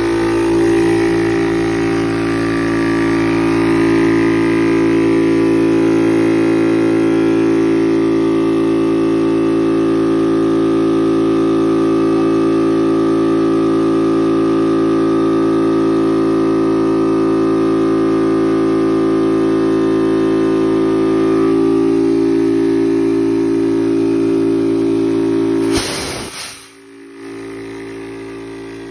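Yong Heng high-pressure PCP air compressor running with a loud, steady hum while it fills a PCP air rifle's air reservoir. Near the end the compressor's drone cuts out with a brief hiss, leaving a quieter hum.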